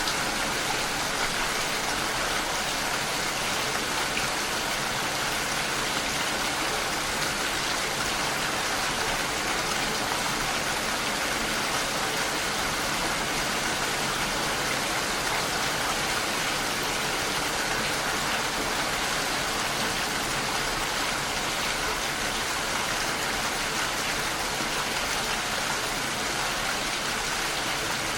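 Steady heavy rain: a continuous, even hiss of rainfall with no let-up.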